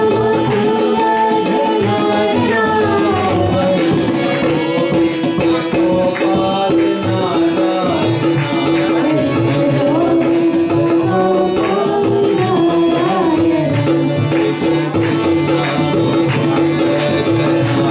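Hindu devotional bhajan: a man sings a wavering melody over a harmonium holding one steady drone note, with hand percussion keeping time.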